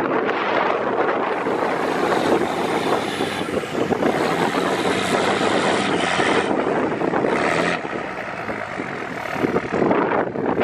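Straight-piped 5.9 Cummins diesel engine running with a loud, steady drone.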